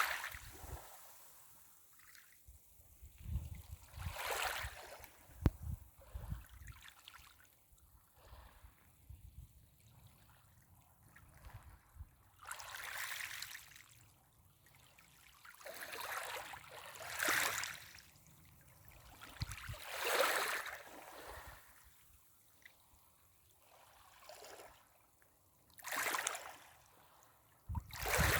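Small waves washing up a pebble beach, each swell ending in the hiss and rattle of pebbles rolling in the water. The waves come every few seconds at uneven intervals, about eight of them.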